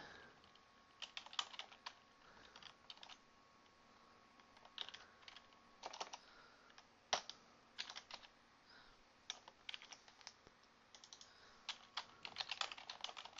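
Computer keyboard keys clicking faintly in short, irregular runs of keystrokes as code is typed.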